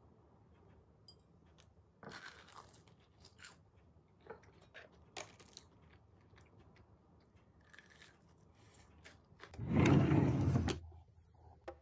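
Close-up crunching and chewing of crispy fried chicken and fried cheese balls, in scattered irregular bites. Near the end comes a louder sliding rush of about a second as a wooden drawer is pulled open.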